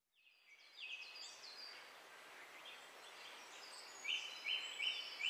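Birdsong over a steady outdoor hiss, fading in during the first second, with many short high chirps. Near the end one bird repeats a short note four times in quick succession.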